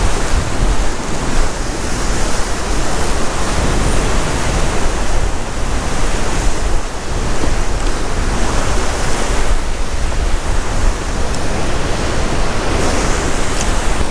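Ocean swell surging and breaking in white water against a rock ledge just below, rising and falling in loud surges every few seconds, with wind rumbling on the microphone.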